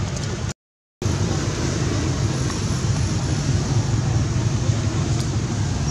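Steady low rumbling background noise with no clear events, broken by a half-second drop to dead silence about half a second in.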